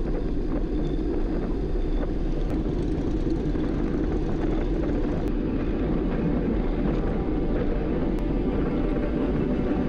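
Wind rushing over the microphone of a handlebar-mounted camera on a moving road bike: a steady, even low rumble.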